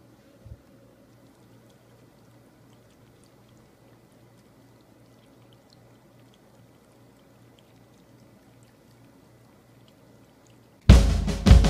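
Cats lapping water from a stainless steel bowl: faint, scattered small ticks over a low steady hum, with one soft knock about half a second in. Near the end, loud music with drums and guitar cuts in suddenly.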